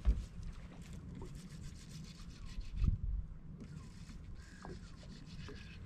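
Fishing reel being cranked to retrieve a swimbait, a raspy whirring in two spells, over a low rumble of wind and water against the boat's hull. A dull thump near the middle is the loudest sound.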